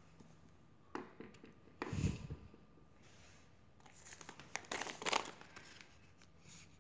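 A dull knock about two seconds in as the handheld microphone is set down on a hard floor. After that, the plastic packaging of a small cable pouch crinkles in a short burst of handling.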